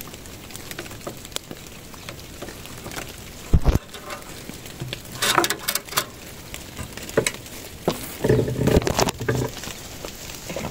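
Light rain pattering with many scattered drips. A dull low thump comes about three and a half seconds in, and there are bursts of rustling around six and nine seconds as a wire-looped wooden fence gate is handled and feet step onto the wet pine-needle path.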